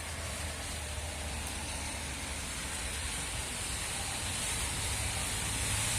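Heavy rain pouring down in a steady hiss, with a low rumble of strong wind beneath it, growing slightly louder toward the end.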